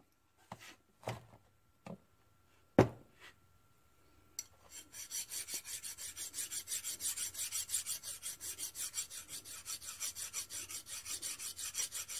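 A few sharp knocks on a workbench, the loudest just under three seconds in, then a small hand file rasping back and forth on a small metal engine-governor part, about four even strokes a second.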